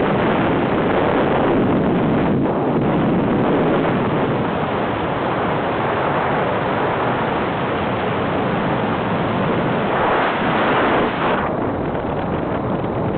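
Wind from a hang glider's airspeed rushing over the camera microphone in flight, a steady noisy rush. It grows harsher for a moment about ten seconds in, then changes abruptly.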